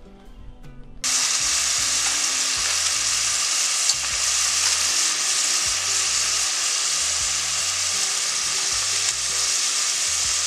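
Chopped mixed vegetables frying in hot oil in a pot, a loud steady sizzle that starts suddenly about a second in as they go into the oil.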